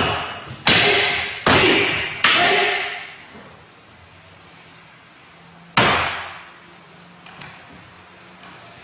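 Wooden staff (bō) and wooden sword clacking together in a paired kata. Three sharp clacks come about a second apart, then one more about six seconds in, each ringing briefly.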